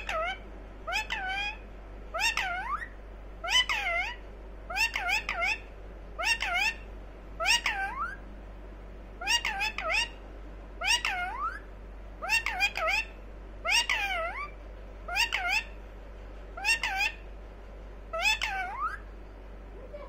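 Indian ringneck parakeet calling over and over, a short swooping call that dips then rises in pitch, a little more than once a second with a brief pause about eight seconds in.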